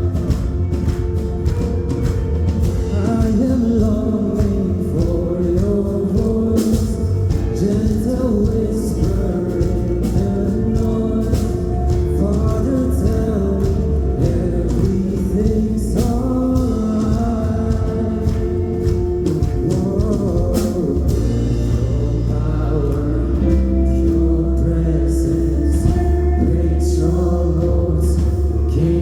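Live worship band playing a praise song, with singing over keyboard chords, bass and drums.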